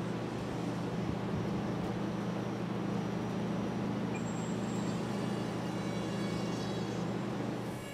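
HobbyKing Skipper RC model plane's electric motor and propeller running at high throttle: a steady, loud drone with a constant low hum, dying down near the end.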